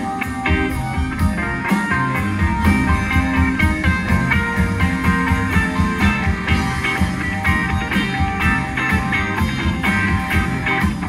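Rock band playing: guitar over bass and drums with a steady beat.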